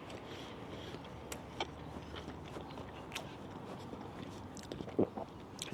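Faint chewing of a mouthful of smoked ham: soft, scattered mouth clicks, with a brief hum about five seconds in.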